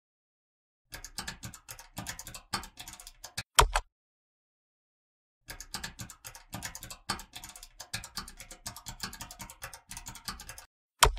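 Computer keyboard typing in two quick runs of key clicks, each run ending with a single sharper, louder click.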